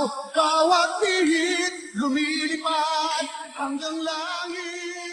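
A song with a solo voice singing a run of long, held notes with vibrato. The last note is drawn out and fades away at the end.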